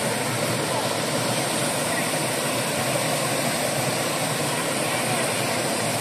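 Steady rush of small waterfall cascades pouring over rock ledges into a shallow pool.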